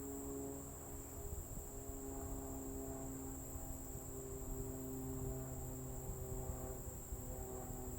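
Steady high-pitched insect trilling, likely crickets, over a steady low hum.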